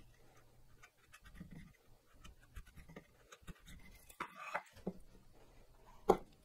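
Light scratching and rustling of a wheel marking gauge and the wooden workpieces being handled on a bench, with a short scrape a little past four seconds in and a sharp knock near the end.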